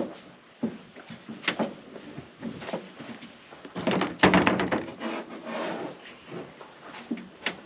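Irregular knocks, clicks and scuffs from carpeted boat parts being handled and fitted into place. The busiest stretch comes about four to five seconds in, with a sharp click near the end.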